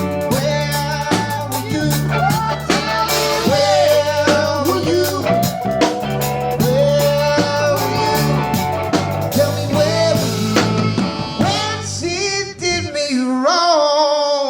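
A rock band playing live with a sung melody over bass, guitar and drum kit. About thirteen seconds in, the bass and drums stop, leaving only the higher melody lines to ring out as the song ends.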